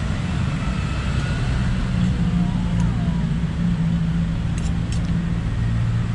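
Street traffic noise with a vehicle engine running steadily close by, a constant low hum. Two light clicks come a little before five seconds in.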